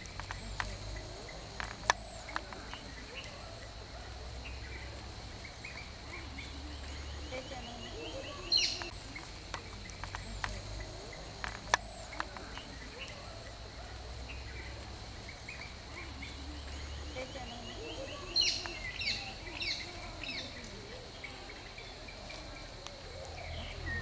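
Outdoor nature ambience: a steady high-pitched insect drone, with bird chirps, a couple of short rapid trills and a few sharp clicks. The loudest chirps come twice, once in the middle and again near the end.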